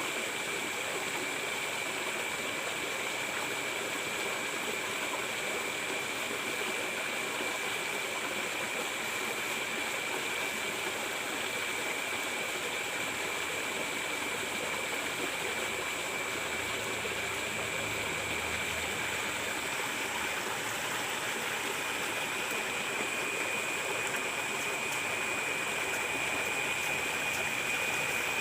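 Water running steadily through a ditch swollen after rain, with a steady high-pitched whine over it.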